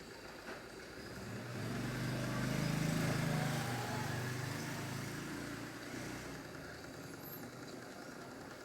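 A motor vehicle passing by: a low engine rumble that swells over a couple of seconds, then fades away.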